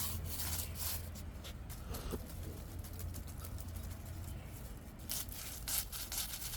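Soft, intermittent rustling and scuffling, as kittens are being handled and brought out, over a steady low hum.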